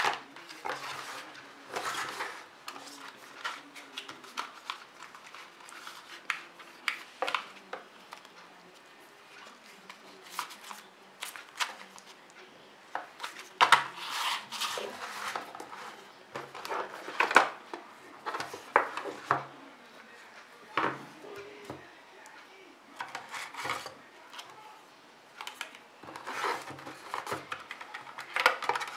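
Handling sounds of a smartphone and its packaging being unpacked: irregular clicks, taps and rubbing, with a few sharper knocks near the middle.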